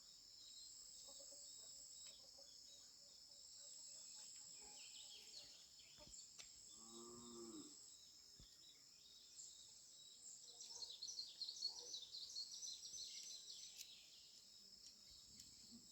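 Faint outdoor ambience: a steady high insect drone, with a brief low call about seven seconds in and a stretch of rapid chirping a few seconds later.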